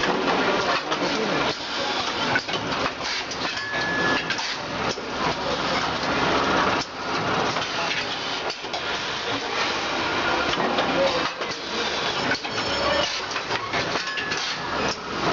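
Automatic packaging machine running: a continuous mechanical clatter with many short knocks.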